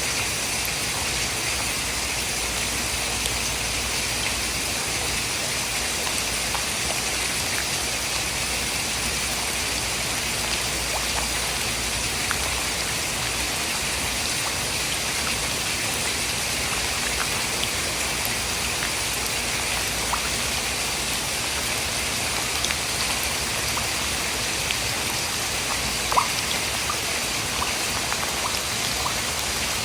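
Steady rain falling, an even hiss with scattered faint drop ticks and one sharper tick near the end, used as natural white noise for sleep.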